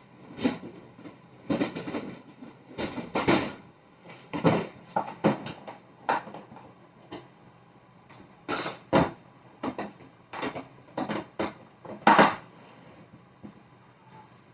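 Irregular knocks and clanks of tools and hardware being handled and set down on a workbench, one with a short metallic ring about two-thirds of the way in.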